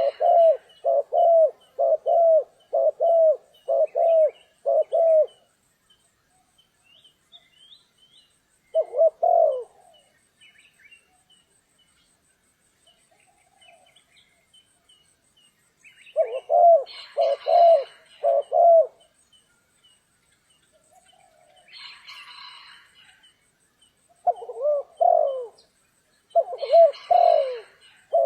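Spotted dove cooing in runs of short, low coo notes with gaps between phrases, six quick coos at the start, then single and grouped coos. Three brief higher rustling bursts come in among the later coos.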